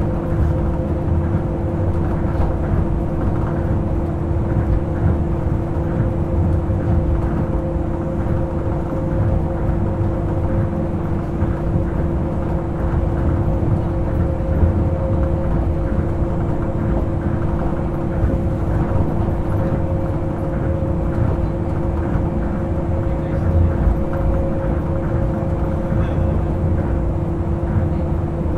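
Tokyo Monorail Series 1000 (Hitachi-built, resistor-controlled) running at a steady pace, heard from inside the car: a heavy low rumble of the rubber tyres on the guideway beam, with two steady humming tones held throughout.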